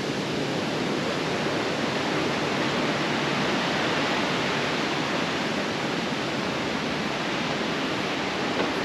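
Steady rushing of a fast-flowing river, an even hiss with no breaks.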